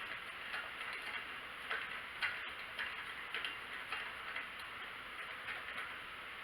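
Light, irregular clicks and taps of small hardware being handled, over a steady hiss.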